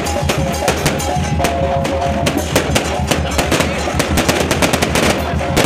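Festival music with drums, a held melodic line and a steady bass, overlaid by many rapid sharp cracks.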